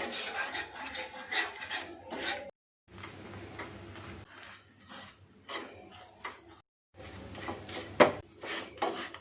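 A spoon scraping and stirring sugar syrup around a kadai on low heat, in irregular strokes, while the sugar caramelizes. The scraping is broken twice by a brief silence.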